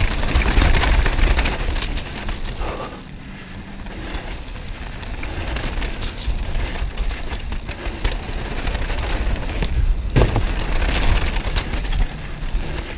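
Downhill mountain bike running fast over a rough dirt trail: tyres rumbling on the ground with steady rattles and knocks from the bike over bumps. It eases off briefly about three seconds in, and there is one sharp knock about ten seconds in.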